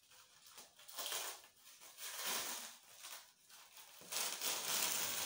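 Rustling and crinkling of a sanitary pad being pulled open by hand, its thin plastic backing and paper layers rustling in several short bursts, then a longer stretch near the end.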